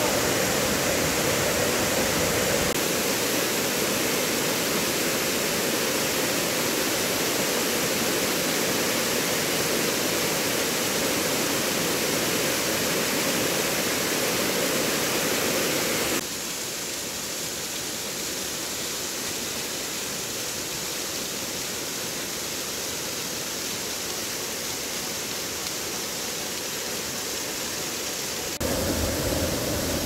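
Rushing water of a mountain stream and waterfall, a steady even rush. It drops abruptly quieter about halfway through and jumps back up near the end, as at cuts between spots along the water.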